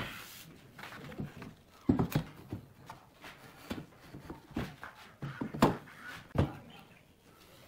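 Wooden parquet panels being set down and pushed together on a wooden workbench: a run of separate hollow knocks and clunks at irregular intervals, some in quick pairs, stopping shortly before the end.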